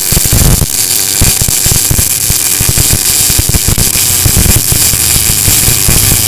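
MIG welding arc from a Tenya New 288 multi-process welder laying a straight bead: a loud, steady crackling sizzle with spatter.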